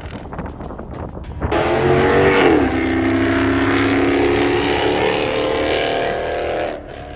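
Car engine at high revs, starting suddenly about a second and a half in over a low rumble. Its pitch dips briefly, then holds steady and loud, and the sound cuts off abruptly near the end.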